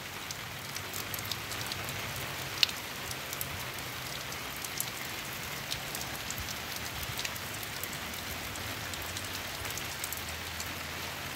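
Rain falling steadily: an even hiss with scattered sharp ticks of single drops, and one louder tap about two and a half seconds in.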